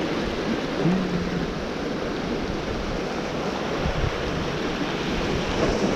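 Sea surf washing against the rocks of a jetty: a steady rushing noise, with wind on the microphone.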